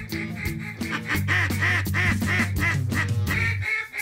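A hunter blowing a mallard duck call: a quick run of quacks, about four a second, that stops shortly before the end. Background music with sustained low notes plays under it.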